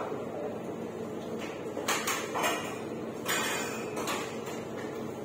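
A few short knocks and scrapes, like things being handled on a counter, over a steady background hum: around two seconds in, again just after, and a longer scrape a little past three seconds.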